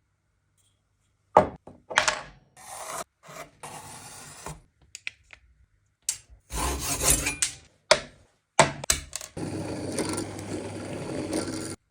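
Hand tools rasping and scraping on a bushcraft knife, in short edited bursts with a few sharp knocks. The stroke-by-stroke rubbing gives way to a steadier stretch of rubbing near the end.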